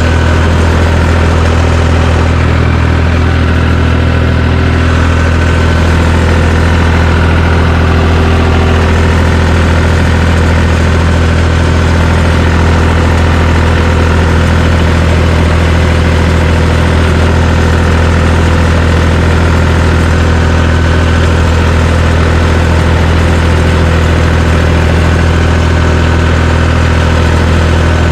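John Deere 350 crawler dozer's engine running steadily at a constant speed, with a strong low hum and no revving.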